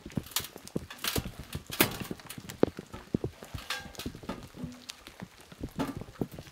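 Irregular knocks and clinks of a stainless steel chimney pipe being handled and a spirit level set against it.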